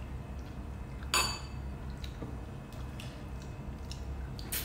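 Metal spoons clinking against ceramic soup bowls: a few light taps, with one louder ringing clink about a second in and another near the end.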